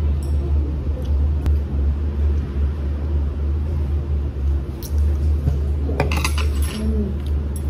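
Tableware clinking: a short cluster of clinks and taps about six seconds in, over a loud, steady low hum.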